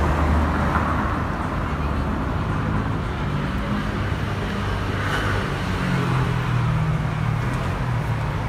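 Street traffic, with the low steady hum of a vehicle engine running nearby.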